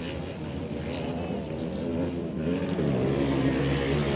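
Engines of several off-road modified race karts running and revving as they race on a dirt track, pitch rising and falling, getting louder in the second half as the pack approaches.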